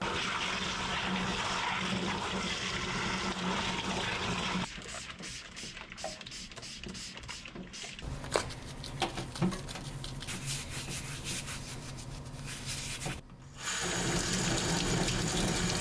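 Kitchen tap running into a stainless steel sink while dishes are washed. About five seconds in the water stops and there is a quieter stretch of small knocks and clatter from handling at the sink. The tap runs again near the end as hands are rinsed under it.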